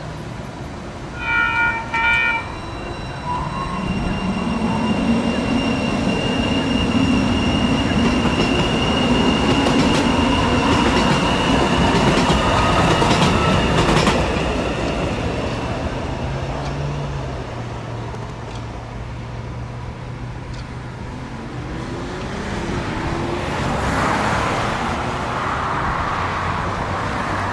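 Siemens Duewag U2A light rail train giving two short horn toots, then pulling out and passing, its rumble growing louder with a steady high whine before fading away. A broad swell of traffic noise rises near the end.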